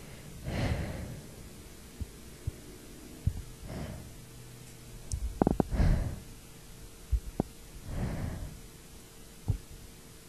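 A woman's breaths catching in the buildup to a sneeze: about four drawn breaths a couple of seconds apart, with soft low thumps and a louder cluster of short knocks about halfway through.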